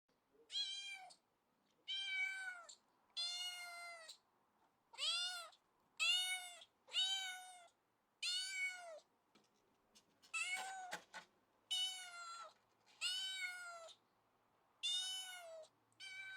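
Domestic cat meowing over and over: about a dozen separate meows, each rising then falling in pitch, roughly one a second. A couple of brief clicks come between the meows about two-thirds of the way through.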